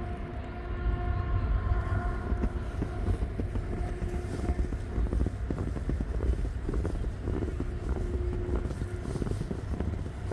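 City street traffic: a vehicle's whine of several tones fades out over the first few seconds over a steady low rumble, with many small clicks and knocks throughout.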